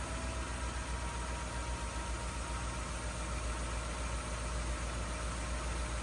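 Ford F-150's 5.0-litre V8 idling steadily, with the A/C compressor not yet engaged.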